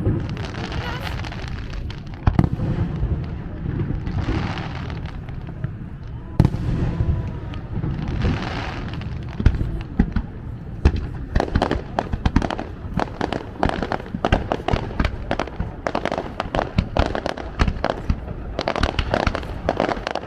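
Fireworks display: deep booms of shells bursting with a hissing crackle, a couple of sharp bangs in the first seconds. From about halfway there is a dense, rapid run of sharp bangs and crackles.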